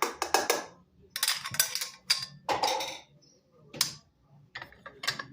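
Irregular clacks, knocks and short scrapes of kitchen work on a hard surface, in about five quick clusters.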